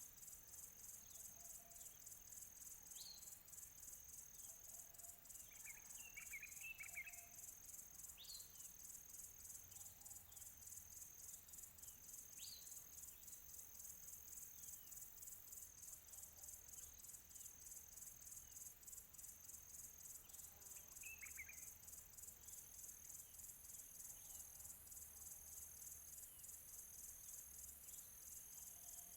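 Faint outdoor nature ambience: a steady, high, rapidly pulsing insect chorus throughout, with scattered short bird chirps every few seconds and small bursts of chirping about six seconds in and again around twenty-one seconds in.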